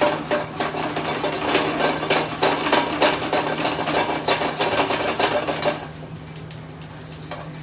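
Metal ladle scraping and clattering against a wok-style pan in quick stirring strokes, stopping about six seconds in, over a steady low hum.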